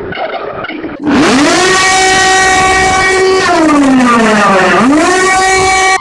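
Puerto Rico's emergency alert alarm tone played at four times speed: a loud siren-like wail that rises about a second in, holds, sweeps down, then rises again and holds. It is preceded by a quieter pulsing sound.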